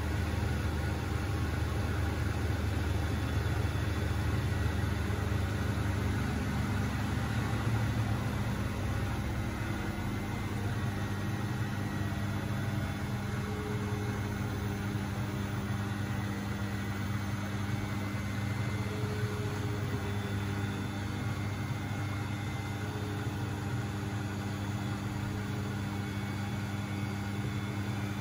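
Beko WMB71642W washing machine running with a steady motor hum over a low rumble; the rumble eases slightly about a third of the way through.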